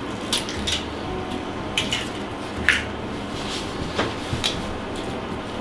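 A handful of light, sharp clicks and taps of glass and kitchen things being handled at a glass jar. The clearest tap comes a little past halfway.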